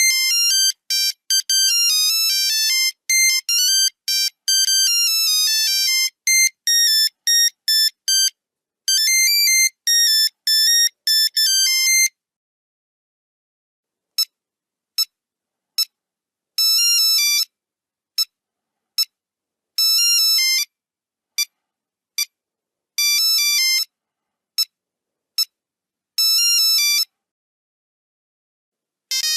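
Nokia 3310 monophonic ringtones, one electronic note at a time. A fast, busy melody stops about twelve seconds in; after a short gap a sparser tune of single notes and short runs plays.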